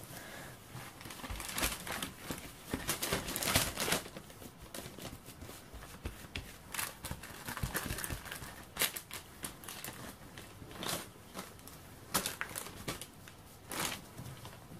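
Baking paper crinkling and rustling irregularly as gloved hands press and shape a seed-bread dough lying on it, busiest in the first few seconds, then in separate short rustles.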